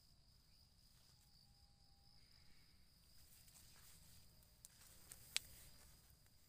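Near silence with a faint, steady, high-pitched insect drone, broken by a sharp click about five seconds in.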